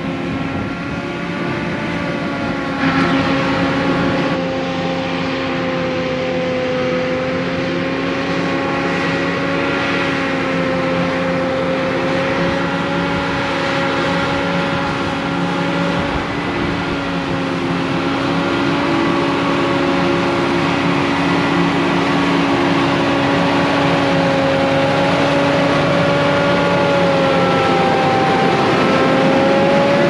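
Heavy farm machinery running steadily under load, a diesel drone with a pitched hum over mechanical noise. There is a brief louder clatter about three seconds in.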